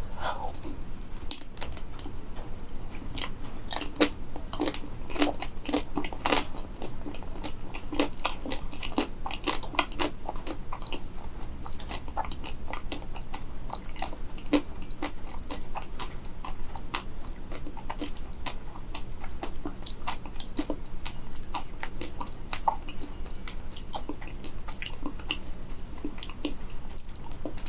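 A person biting and chewing a crisp-shelled frozen banana with a matcha coating, close to the microphone: irregular crunching and crackling of the hard shell throughout.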